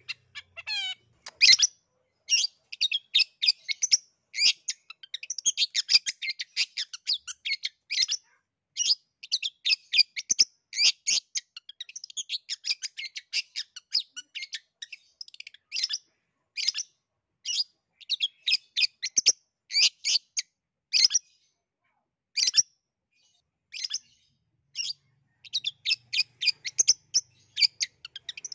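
Long-tailed shrike (cendet) singing a fast, chattering song of many short high notes in phrases broken by brief pauses.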